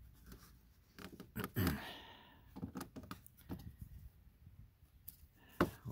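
Scattered light knocks and clicks from a pleated cabin air filter being handled and pushed against a plastic cowl opening, with a brief scraping rustle about a second and a half in and a sharper click near the end.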